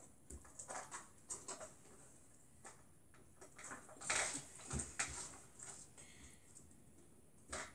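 Scattered light clicks and taps from a plastic slime-maker toy being cranked and handled, with a louder cluster of taps about halfway through.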